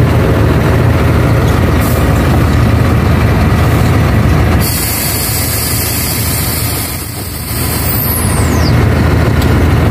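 Ashok Leyland truck's diesel engine idling in the cab, with a hiss of compressed air from the brake system lasting about three seconds around the middle.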